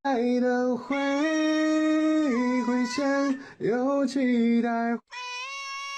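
A voice holding long, sung-sounding notes that step up and down in pitch, with short breaks between them. About five seconds in it cuts off, and a quieter, higher held note follows.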